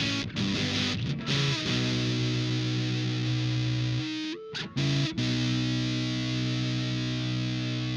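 Electric guitar played through the LARAN, a muff-style fuzz pedal with a MOSFET input stage, into an amp. A quick run of distorted notes leads into a held chord, which is cut off about four seconds in; a new chord is struck about a second later and left to ring.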